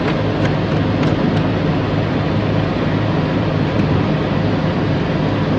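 A heavy truck engine idling steadily, a loud even drone, with a few light clicks in the first second and a half.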